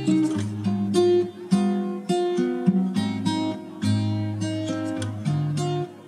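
Background music: an acoustic guitar playing plucked chords, with a new note or chord about every half second.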